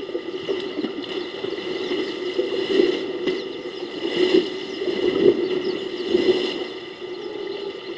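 Elephants wading and splashing in a shallow waterhole: irregular sloshing and splashing of water, swelling and falling in surges.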